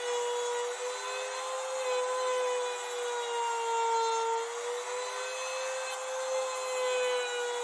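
Compact trim router running in a flattening sled, its bit cutting across the face of a wooden slab: a steady high motor whine with cutting noise, the pitch sagging a little under load about halfway through.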